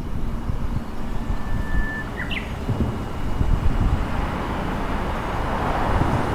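Wind buffeting the microphone with a low, gusty rumble. About a second in, a bird gives one held whistle, then a quick up-and-down note.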